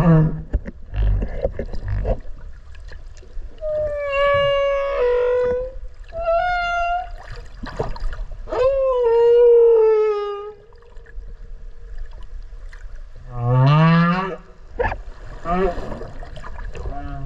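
Humpback whale song heard underwater at close range: a sequence of pitched moans and wavering calls. Low upswept moans come near the start and again late on, and longer, higher calls that bend in pitch fall in the middle.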